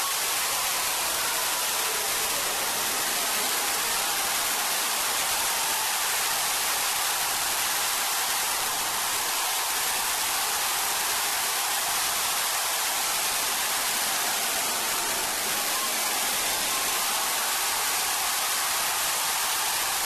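A steady, even hiss of noise that holds throughout, with no distinct knocks or voices standing out.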